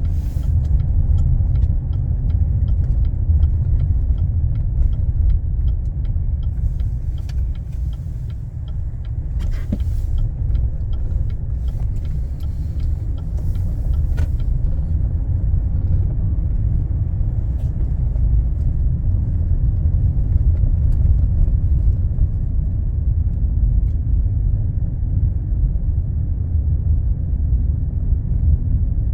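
Blizzard wind buffeting the microphone: a loud, steady low rumble that swells and eases, with scattered faint clicks in the first half.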